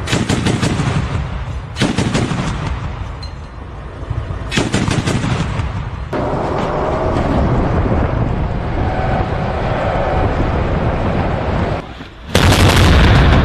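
Bursts of heavy gunfire, including the 30 mm autocannon of a BTR-82A armoured personnel carrier, over a dense rattle of shots. The loudest burst lasts about a second near the end.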